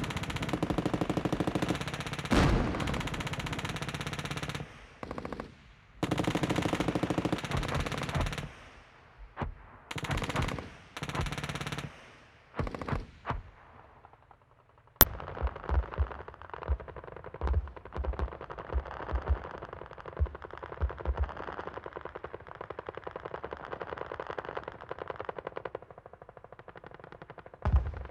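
Automatic gunfire: long machine-gun bursts in the first half, then a few shorter bursts. About halfway through comes a single sharp crack, then a steady battlefield din of scattered rapid shots with low thuds.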